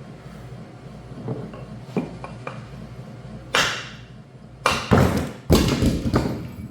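Hammer blows on a Tesla Model 3 front drive unit to drive the differential out: a few light knocks, then a louder ringing strike. Near the end comes a heavy metallic crash and clatter as the differential comes free and drops.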